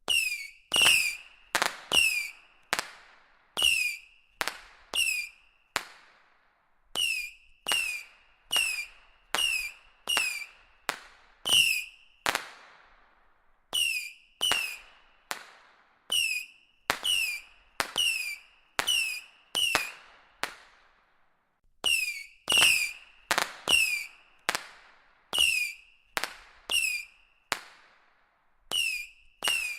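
A box of whistling rockets going off one after another, about forty in half a minute. Each opens with a sharp pop and a brief high whistle that slides down and levels off, then fades into a hiss.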